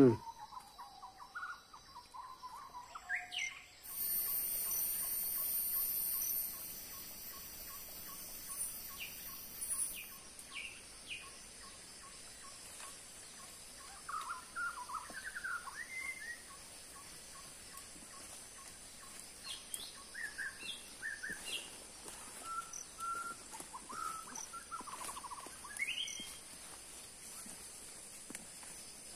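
Tropical forest birds chirping and calling with short scattered notes, over a faint pip repeating evenly. About four seconds in a high steady buzz comes up, the loudest sound here, and fades a few seconds later.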